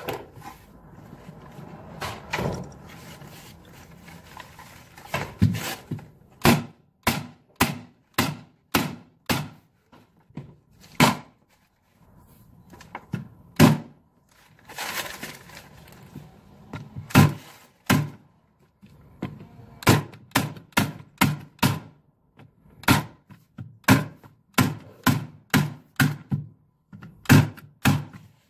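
Repeated hammer knocks on wooden stair treads while black stair nosing strips are fastened down. The sharp knocks often come in quick runs of two to four. About halfway through there is a short stretch of scraping.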